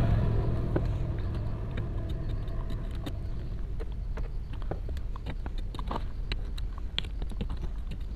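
Small scattered clicks and taps from soldering the pins of a 2030 amplifier IC on a home theater board and handling the board, over a steady low background rumble.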